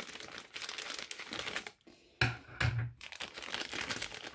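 Frosted plastic pouch crinkling as hands open it and handle its contents, with a short lull a little under two seconds in followed by two louder crinkles.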